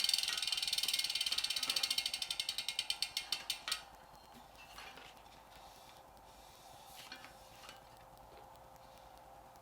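Freehub of a carbon road wheel ratcheting as the spun wheel coasts, the clicks slowing and stopping about four seconds in. Then a few faint handling knocks.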